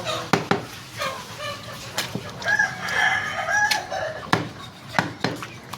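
A rooster crowing once, for about a second and a half, starting about two and a half seconds in, among sharp chops of a cleaver through chicken on a chopping block.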